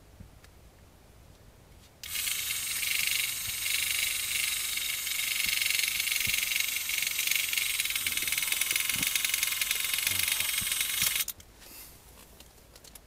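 Small electric fishing-reel motor running with a steady high whir for about nine seconds, starting and stopping abruptly.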